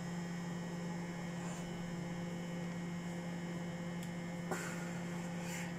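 Microwave oven running at 600 watts: a steady, even hum.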